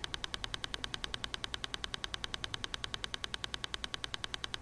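A fast, even electronic ticking pulse, about ten short clicks a second, steady throughout: the alpha-rate background beat laid under Silva Method guided meditations.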